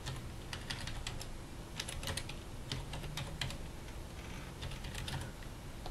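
Typing on a computer keyboard: a string of quick, sharp keystrokes in uneven bursts, over a steady low hum.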